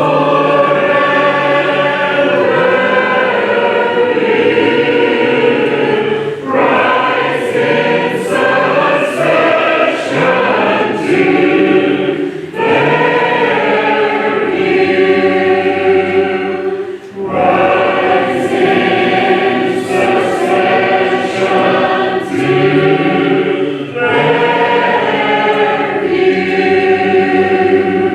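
Congregation of mixed voices singing a hymn a cappella, without instruments, line by line with brief pauses for breath between phrases.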